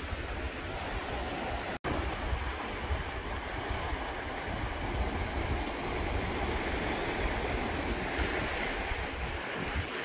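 Small sea waves washing and breaking over shoreline rocks, a steady rush of surf, with wind rumbling on the microphone.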